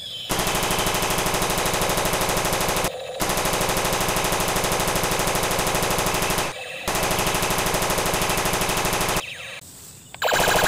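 Battery-powered light-and-sound toy assault rifle firing its electronic machine-gun sound effect: three long bursts of rapid, evenly spaced shots with two short breaks between them.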